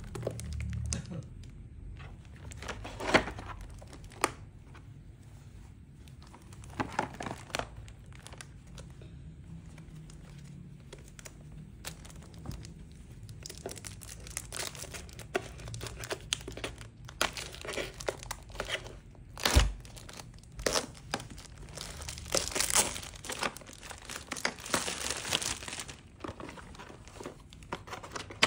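Clear plastic shrink-wrap crinkling and tearing as it is picked and peeled off a cardboard toy box, in scattered bursts that grow busier in the second half. A single sharp thump about two-thirds of the way through.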